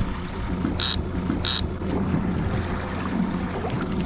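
Yamaha 115 four-stroke outboard running at trolling speed with a steady low hum, water washing past the stern and wind on the microphone. Two short high-pitched chirps come about a second in.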